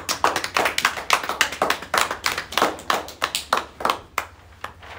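Hand clapping in a short round of applause, with irregular, overlapping claps that thin out near the end.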